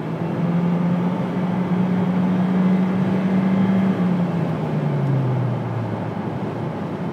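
Inside the cabin of a 2011 Nissan Juke, its 1.6-litre turbocharged four-cylinder with a Stillen axle-back exhaust pulling at wide open throttle at highway speed: the engine drone climbs in pitch and holds over a steady wash of wind noise, then drops in pitch and fades from about four seconds in.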